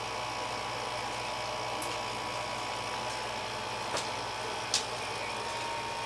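GoldStar window air conditioner running with a steady hum, a few short clicks over it.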